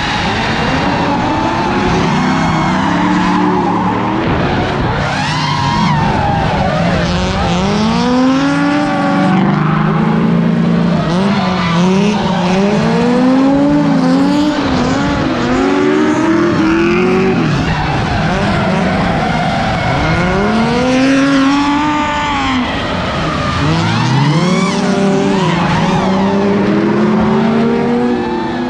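Drift cars sliding around a track, their engines revving up and falling back again and again, with tyres squealing and skidding over a constant loud rush.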